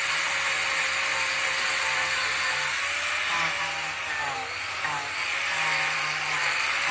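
Handheld power carving tool grinding away bishop wood while shaping a root bowl: a steady motor whine that wavers as the load changes, easing off briefly about four seconds in.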